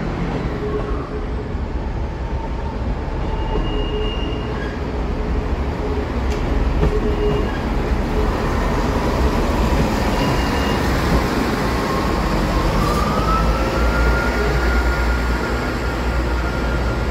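Northern multiple unit train moving out along the platform: a steady low engine and wheel rumble, with a whine that rises in pitch about three-quarters of the way through as it picks up speed.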